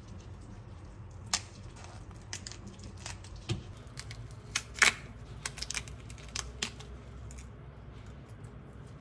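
Swimming crab's shell cracking and snapping as its top shell is pried off and the gills pulled out by hand: a string of sharp clicks and cracks, the loudest about five seconds in, with several more in quick succession just after.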